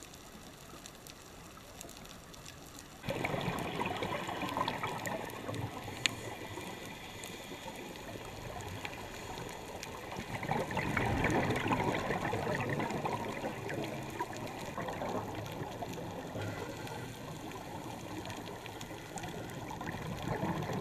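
Underwater bubbling and rushing of a scuba diver's exhaled breath from the regulator. It starts suddenly about three seconds in and grows louder about ten seconds in, with one sharp click about six seconds in.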